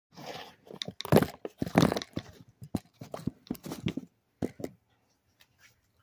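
Handling noise of a hand rubbing, scraping and knocking against a phone camera close to its microphone: a run of crackling scrapes and sharp clicks that stops after about four and a half seconds.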